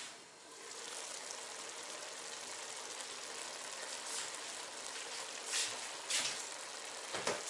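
Pork, onion and tomato stew simmering in an uncovered cast-iron kazan: a steady bubbling hiss that sets in once the lid comes off, with a couple of louder pops later on.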